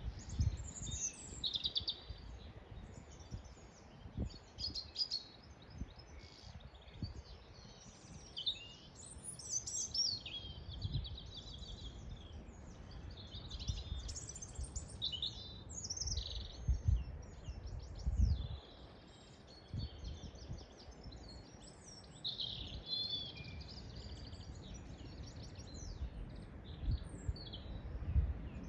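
Several songbirds singing together: many short overlapping chirps, trills and warbles. Irregular low rumbles run under them.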